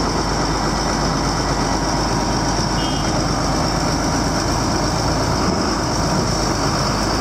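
Engine running steadily at a constant speed, with no change in pitch.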